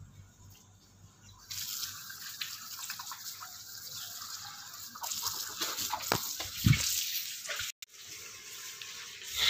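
Water running from an outdoor wall tap as a man washes for wudu (ablution). It starts abruptly about a second and a half in, grows louder after a few seconds, and there is a low thud near the end.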